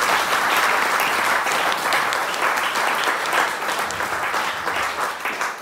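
Audience applauding: dense clapping that tapers off near the end.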